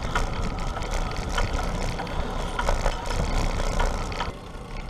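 Wind rushing over an action camera's microphone on a fast-moving bicycle: a steady low rumble with scattered light clicks and rattles, easing a little near the end.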